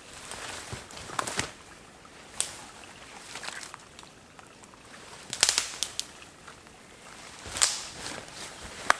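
Dry sticks and twigs cracking and snapping in a forest, an irregular string of sharp cracks with the loudest clusters about five and a half and seven and a half seconds in.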